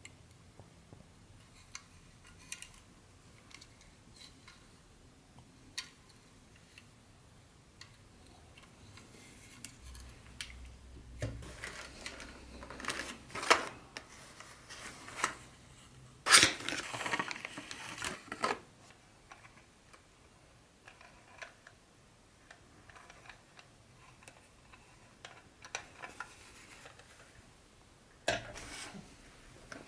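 Handling of a vintage Tyco HO-scale model train set and its packaging: scattered small clicks and taps of plastic pieces, with a denser stretch of rustling and clattering in the middle that holds the loudest knocks.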